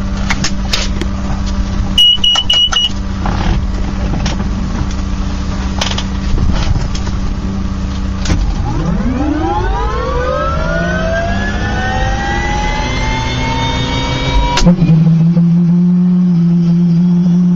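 Turbine helicopter, played at double speed so everything sounds higher: first a steady engine and rotor drone with a few clicks and a short beep about two seconds in. About halfway through it cuts to a turbine whine that rises steeply and levels off as the engine spools up. Near the end it cuts to a louder steady turbine and rotor drone as a JetRanger-type helicopter lifts off.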